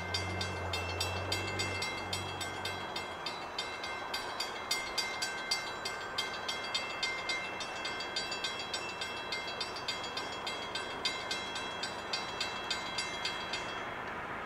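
A railroad warning bell ringing in a steady rhythm, about two to three strokes a second, that stops shortly before the end. A low steady hum is also heard for the first two or three seconds.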